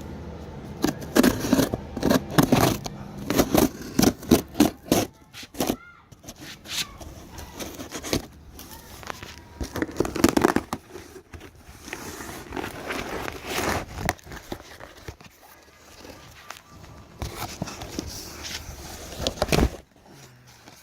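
Packaging being handled as a box is opened: crinkling, rustling and scraping, with a quick run of sharp knocks and clicks in the first few seconds.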